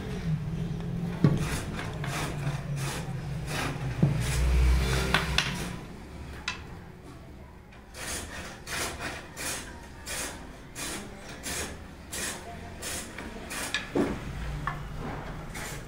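Wooden snooker cue blank being rubbed along its length by hand in quick repeated strokes, a dry scraping rub about twice a second.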